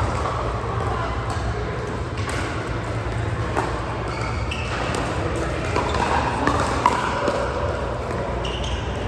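Background chatter over a steady low hum, with a few sharp clicks, the loudest about seven seconds in.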